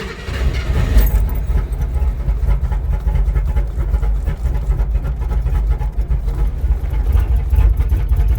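Jeep engine running with a steady low rumble, with a sharp clunk about a second in.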